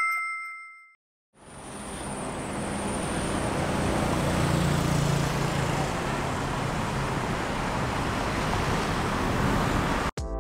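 Street traffic: cars and motorbikes passing on a busy city road, an even steady rumble that fades in about a second and a half in and cuts off just before the end. At the very start a brief ringing chime dies away within a second.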